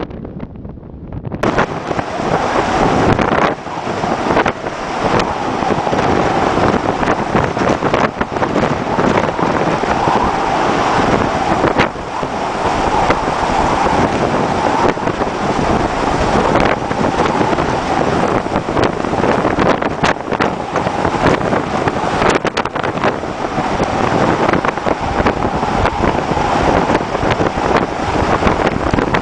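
Gale-force wind buffeting the microphone, with rough seas breaking against a cargo ship's bow, heard from the ship's bridge. It is quieter for the first second and a half, then jumps louder and fuller.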